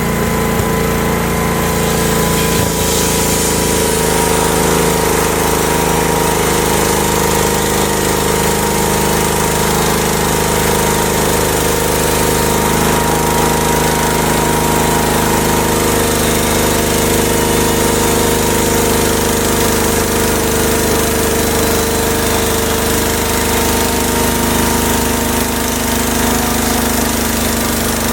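Home-built sawmill running steadily, its engine going while the saw cuts through black locust lumber.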